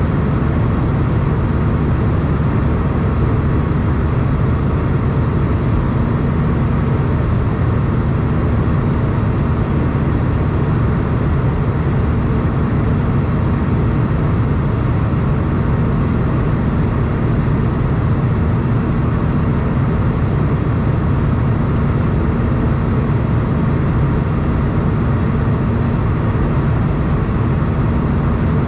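Steady cabin drone of an Airbus A220 in flight, heard from a seat over the wing: the rush of its Pratt & Whitney PW1500G geared turbofans and the air streaming past, with a faint steady hum underneath.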